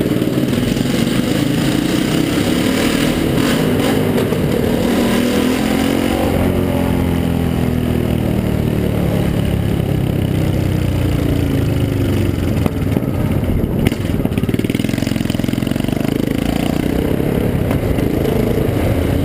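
Yamaha XT660R motorcycle's single-cylinder four-stroke engine running loud through an open exhaust, one of its two silencers opened up. The engine pitch rises and falls as the revs change.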